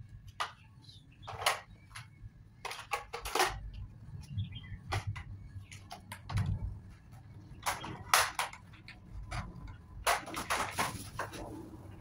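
Plastic parts of a new stick vacuum cleaner being handled and fitted together: irregular clicks, knocks and rattles, loudest in clusters a second or two apart.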